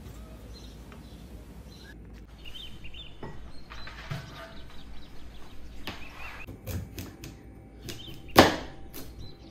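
Kitchen handling sounds: a plastic cutting board is lifted from a dish rack and handled, with scattered clicks and rubs. Then a chef's knife cuts a purple sweet potato on the board, with one sharp knock on the board near the end as the loudest sound.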